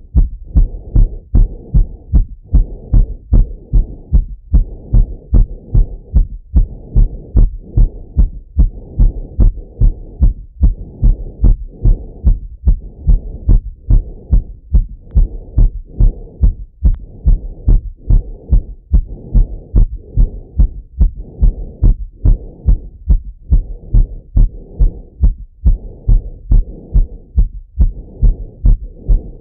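A man's heart beating fast, heard through a Littmann stethoscope chest piece after running, with a steady run of paired lub-dub thumps. A soft rushing noise comes and goes between the beats.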